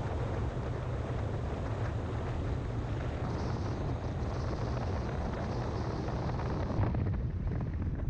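A car driving at highway speed: a steady deep rumble of wind and tyre noise on a camera mounted on the car, the upper hiss easing slightly about seven seconds in.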